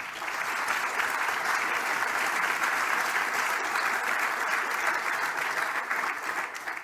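An audience applauding, a dense steady clapping that starts suddenly and fades away near the end.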